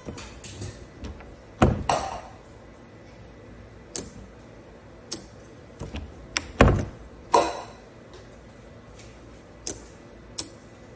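Scattered sharp clicks and knocks from a fingerprint door lock and its handle being handled, with two louder clunks, about two seconds in and again near seven seconds, each ringing briefly.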